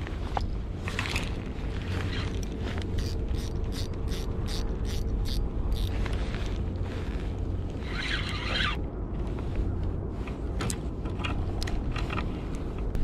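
Spinning reel being cranked to retrieve a lure, its gears clicking in an even rhythm of about three clicks a second, with a short scraping hiss about eight seconds in.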